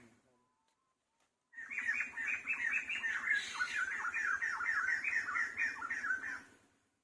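An animal calling in a rapid series of short, falling notes, about five a second, starting about a second and a half in and lasting about five seconds.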